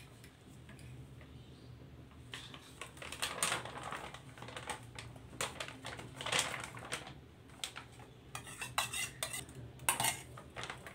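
Metal spoon scraping and clinking against a steel mixing bowl while scooping out thick mayonnaise-based sauce, in irregular clusters of short scrapes and clicks.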